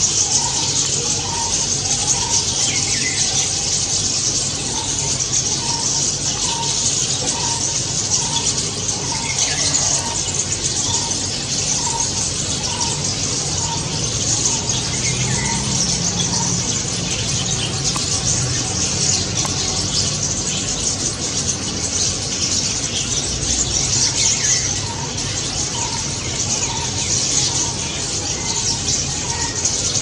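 A flock of rosy starlings chattering and squealing in a dense, continuous mass of harsh, high-pitched calls, with a softer note repeated about twice a second through the first half and again near the end.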